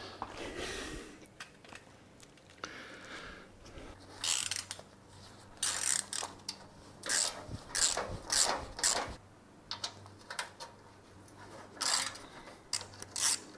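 Hand ratchet wrench clicking in short runs as bolts are backed out.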